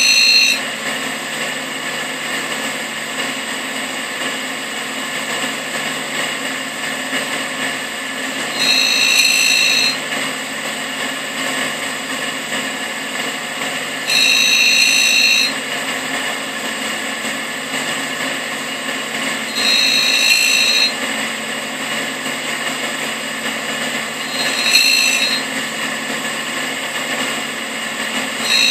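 Tool and cutter grinder (a Russian clone of a Cincinnati No. 2) running steadily with a dish wheel, while an end mill's flutes are ground. About every five to six seconds a high-pitched whine lasting a second or so rises over the hum, as each flute is passed across the wheel.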